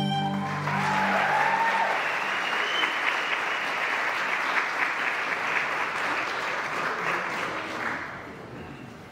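Audience applauding and cheering as violin-and-guitar music ends, with a few shouts over the clapping in the first couple of seconds. The applause dies away near the end.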